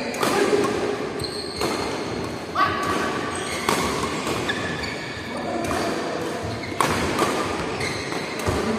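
Badminton rally: rackets striking the shuttlecock with sharp cracks about every second, with short squeaks of shoes on the synthetic court mat, all echoing in a large hall.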